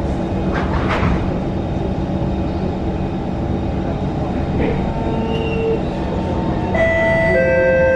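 SMRT C151 metro train interior: the saloon doors shut with a couple of knocks about a second in, then the train pulls away with a continuous rumble and hum. Several steady whining tones from the traction equipment set in near the end as it gathers speed.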